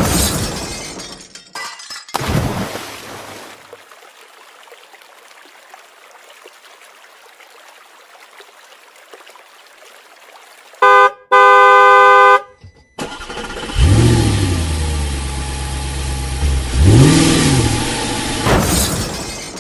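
Dubbed vehicle sound effects: a car horn honks about eleven seconds in, a short beep and then a longer blast. After it an engine revs twice, its pitch rising and falling each time.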